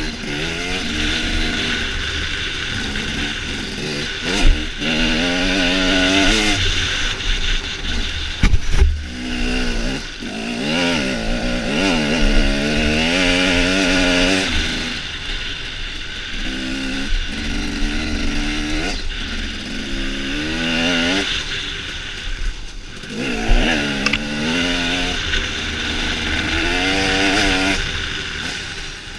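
Enduro motorcycle engine revving hard, its pitch climbing and dropping back again and again as the rider accelerates and backs off over the dirt track, heard on board with wind rushing on the microphone. A few sharp knocks stand out, about four and a half and nine seconds in.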